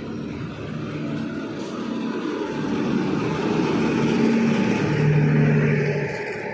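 A train passing through the station, its running noise swelling to a peak about five seconds in and then easing off, with a low hum under the rumble.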